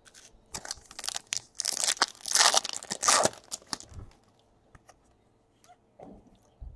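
Crinkling and rustling of a foil trading-card pack wrapper and cards being handled, in a cluster of scratchy bursts from about half a second in to three and a half seconds, then a few light clicks.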